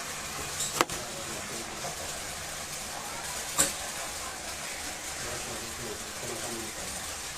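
Two sharp knocks about three seconds apart over a steady background hiss, from hardware being handled while a TV wall bracket is fitted.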